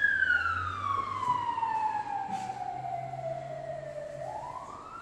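A wailing siren: its pitch falls slowly over about four seconds, then starts to rise again near the end, growing gradually fainter.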